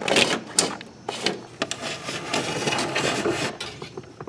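Bundle of wires taped to a coat hanger being dragged through a rubber firewall grommet: uneven scraping and rustling with a few sharp knocks.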